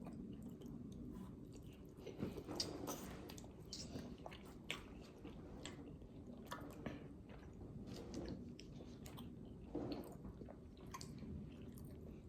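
Close-up chewing and biting of fried food: irregular wet, crunchy mouth sounds as someone eats boneless chicken wings and fries.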